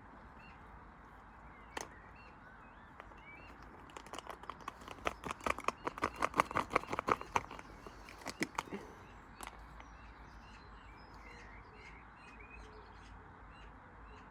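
Small birds chirping, with a run of rapid clattering knocks lasting about five seconds in the middle that builds up and then fades away.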